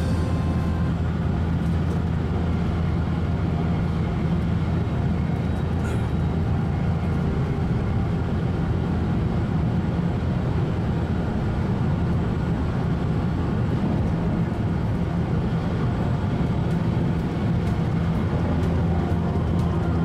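Steady interior running noise of a JR Special Rapid (Shinkaisoku) electric commuter train under way, heard from the passenger cabin: a continuous low rumble and hum.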